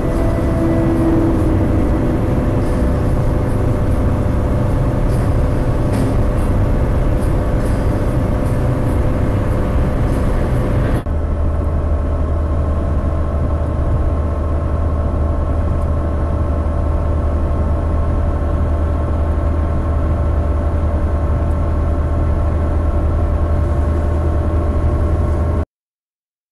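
Steady engine and road noise of a car driving. About eleven seconds in it cuts abruptly to a deeper, steady drone, which stops dead shortly before the end.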